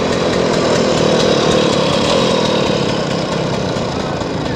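Small vintage scooter's engine running as it rides off, loudest a second or two in and then easing off slightly.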